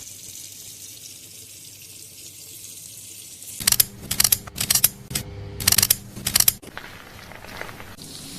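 Water from a salon shampoo-basin sprayer running over hair: a steady hiss, then about three seconds of loud, uneven splashing spurts, then a calmer flow.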